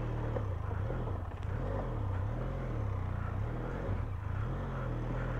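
Benelli TRK 502's parallel-twin engine running at low revs, its pitch rising and falling as the throttle is worked over a rocky trail.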